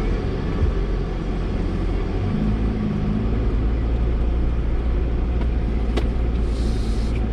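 AEV Chevrolet Colorado ZR2 Bison pickup's engine running under load as the truck drives through soft sand. From about two seconds in, a steady low engine note holds.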